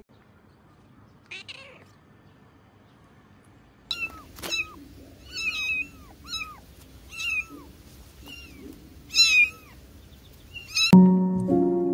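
A kitten mewing: about eight short, high-pitched mews over several seconds, each bending down in pitch. Piano music starts suddenly near the end.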